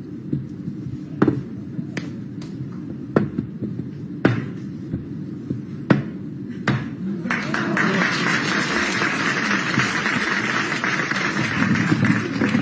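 Sharp, separate knocks of metal cups set down hard on a tabletop, about seven in the first seven seconds, over a low pulsing background. From about seven seconds in, audience applause rises and holds.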